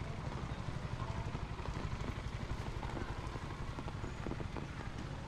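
City street ambience: a vehicle's low engine rumble over a steady wash of street noise.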